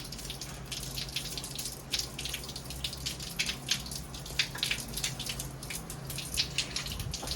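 Tap water running and splashing unevenly as the washing machine's inlet-valve filter is rinsed under it to wash off water scale.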